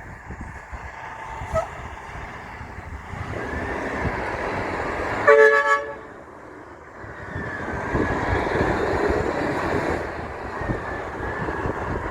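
Trucks passing on a road, with engine and tyre noise building, and a single short horn toot of about half a second midway, the loudest sound. After a brief lull, another truck goes by.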